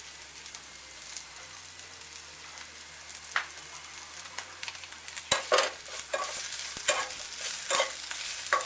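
Boiled babool (acacia) pods and spices sizzling in oil in a metal pan. About five seconds in, a spoon starts stirring them, scraping and clinking against the pan.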